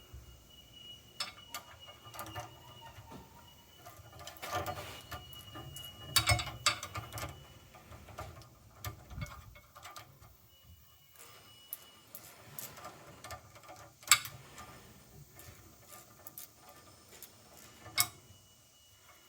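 Scattered small metallic clicks and taps of hydrant linkage parts, nuts and hand tools being handled during reassembly, with a few sharper knocks.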